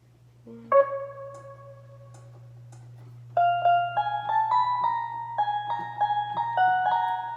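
Musical keyboard playing a simple tune. One note is struck under a second in and left to fade, then single notes follow in a steady run of about two a second from about three seconds in.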